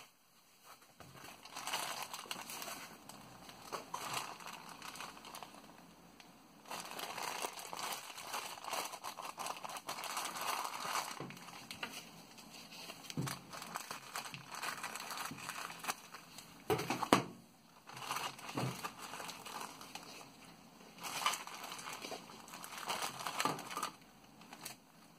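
Clear plastic packaging bags crinkling and rustling as they are handled and pulled open, in bouts with short pauses, the loudest crackle about 17 seconds in.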